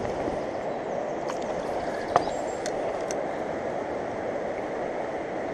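Fast-flowing mountain river rushing steadily, with one sharp click about two seconds in.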